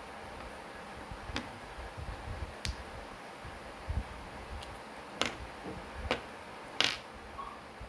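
Small sharp plastic clicks and taps from handling a smart key remote's case while its battery is being changed. There are about five, scattered unevenly, and the loudest comes near the end.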